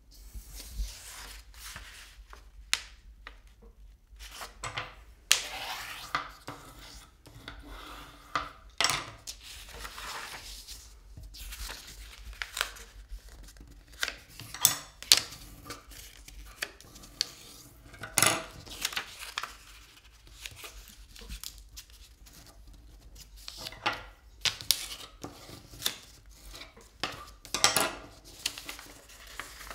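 A sheet of paper being folded by hand on a wooden table: irregular rustling and sliding, with sharp crackles as the folds are pressed flat.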